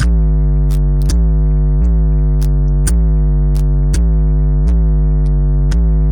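Electronic music: a deep synthesizer bass note with heavy sub-bass, re-struck about once a second, with short clicks above it and no vocals.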